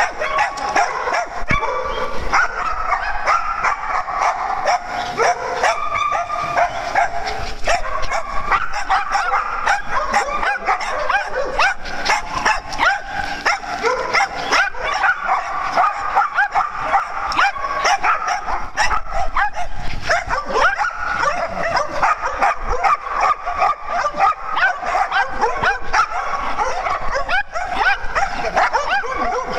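Several small dogs barking and yipping without pause, many barks overlapping into a steady din.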